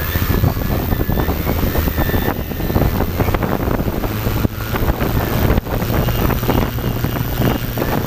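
Quadcopter drone's motors and propellers running with a steady low hum, their downwash buffeting the drone's own camera microphone in a rough, gusty rush of noise.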